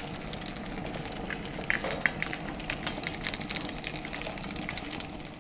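Small bratwurst sausages frying on a hot grill plate: steady sizzling full of fine crackles and spitting pops, with a few louder pops about two seconds in.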